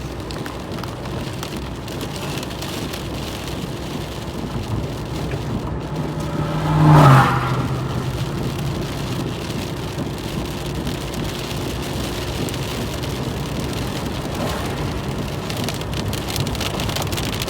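Steady rain falling during a severe thunderstorm, with one brief louder sound about seven seconds in.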